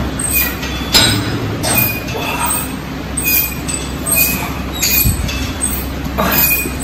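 Steady noise of gym fans running, with metal clinks of dumbbells and a dull thump about five seconds in.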